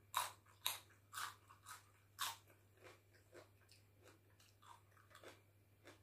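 Person biting and chewing a mouthful of green vegetable: five crisp crunches in quick succession over the first couple of seconds, then softer, fainter chewing.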